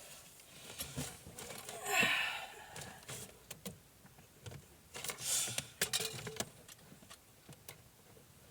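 Handling noise: scattered light clicks and knocks, with two short rushing bursts about two and five seconds in.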